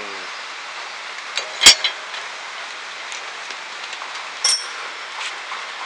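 Metal motorcycle parts (a lamp housing and its steel bracket) being handled and knocked on a concrete ledge. There is one sharp knock, the loudest sound, with small clicks just before and after it, and later a short ringing metal clink, over a steady hiss.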